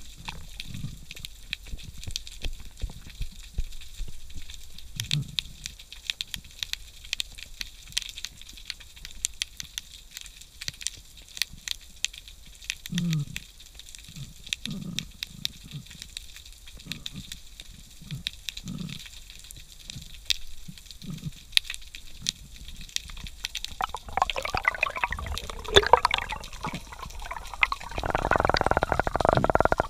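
Underwater reef ambience: a steady crackle of fine snapping clicks, with scattered short low thuds. Near the end a louder rush of water and bubbling as the freediver swims up to the surface.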